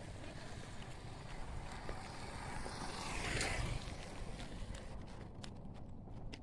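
Wind buffeting a phone microphone as a low, steady rumble, with a louder rushing swell a little past halfway.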